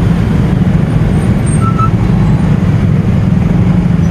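Motorcycle engine running at low speed in slow, dense city traffic: a steady low rumble with the surrounding traffic mixed in.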